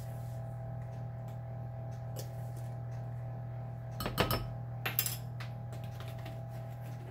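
A short clatter of clinks about four seconds in and a few more clicks about a second later: a plastic measuring spoon knocking against a ceramic mixing bowl as ranch seasoning is spooned in from a shaker bottle. A steady low hum runs underneath.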